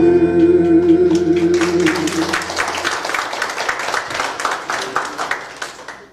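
The song's last note, held by the singer over the backing music, ends about two seconds in. A congregation's applause starts just before it ends and fades away near the end.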